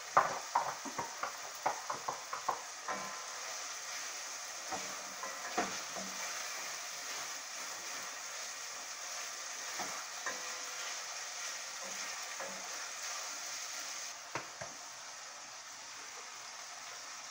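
Saltfish sautéing with its seasoning in a metal pot: a steady sizzle, with a wooden spoon clicking and scraping against the pot over the first few seconds and now and again after. The sizzle settles a little quieter near the end.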